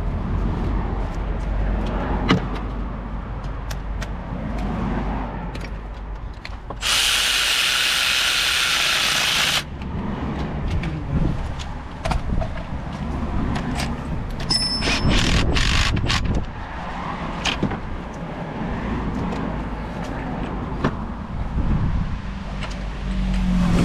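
Hand tools clicking and knocking during under-bonnet work, with a power tool run once for about three seconds, starting about seven seconds in.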